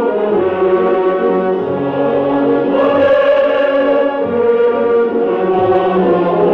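Choral music with brass and orchestra: a choir holds long, sustained chords over brass.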